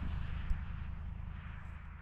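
Wind buffeting the microphone outdoors: a steady low rumble with a hiss that slowly fades out, with one brief click about half a second in.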